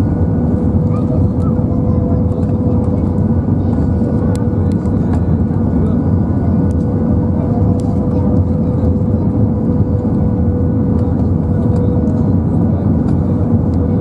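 Steady cabin noise of an Airbus A320-232 (IAE V2500 turbofans) heard from a seat over the wing on approach with flaps extended: a loud, even rush of airflow and engines with a thin steady tone running through it.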